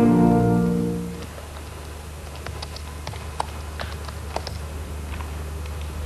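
A music cue's held chord fades out about a second in. Then come scattered, irregular clicks of typing on a laptop keyboard over a low steady hum.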